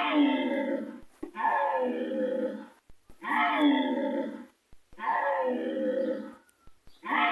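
Ankylosaurus roar sound effect: a harsh, growling call about a second long, played about five times in a row with short gaps between.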